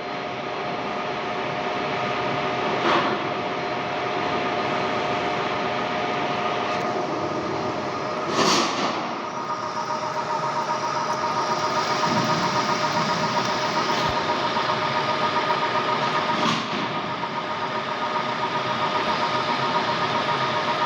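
Metal lathe running, a steady mechanical whine with several held tones that shift to a different pitch about nine seconds in, then carry a rapid, even flutter. Brief sharp scrapes or knocks come three times, at about three, eight and a half and sixteen seconds.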